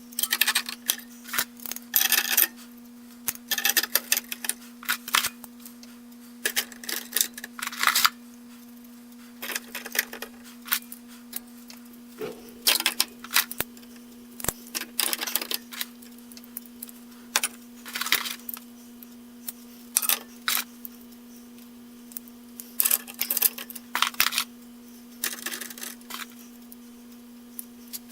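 Steel vise grips (locking pliers) clinking and clattering against each other and against screws as they are taken from a box and hung up one after another, in irregular bursts of metallic knocks over a steady low hum.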